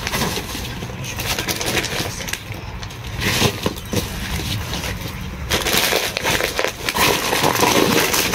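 Plastic shopping bag and packaging rustling and crinkling as items are handled and pulled out, a dense crackle that gets louder about halfway through.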